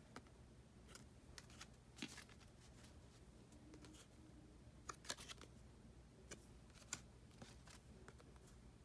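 Near silence broken by faint, scattered clicks and taps of small cardboard collector and photo cards being handled and swapped in the hands, a little louder about two and five seconds in.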